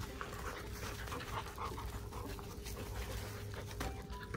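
Dogs panting while playing tug-of-war with a rope toy.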